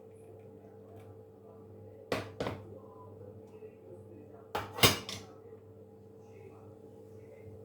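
Dishes knocking as they are handled and set down: two pairs of sharp knocks, the second pair louder, over a steady low hum.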